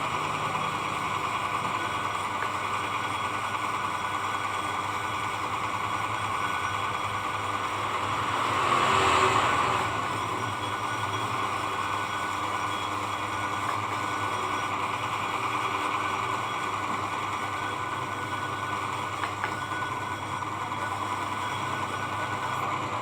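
Electric blade-sharpening disc machine running steadily while a machine blade is lapped on it with oil, with a louder rasping swell about nine seconds in as the work presses harder.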